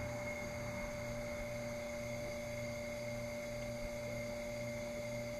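Steady machine hum made of several constant tones, with a low throb that pulses gently.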